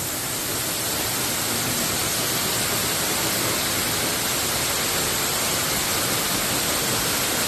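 Waterfall's falling water rushing steadily, an even, unbroken wash of noise.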